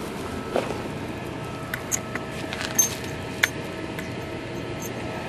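Light metallic clicks and jingles, about five sharp ticks in the first few seconds, over a steady background hum.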